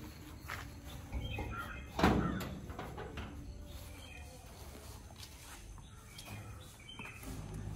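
A metal door is pushed open with one sharp clank about two seconds in, which rings on briefly. Birds chirp faintly.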